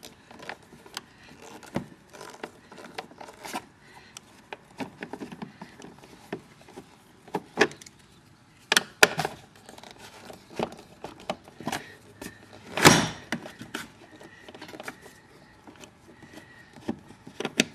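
Hand screwdriver turning out the screws that hold a wheel gearbox on a Peg Perego John Deere ride-on toy tractor: irregular small clicks, taps and scrapes on metal and plastic, with one louder clatter about two-thirds of the way in.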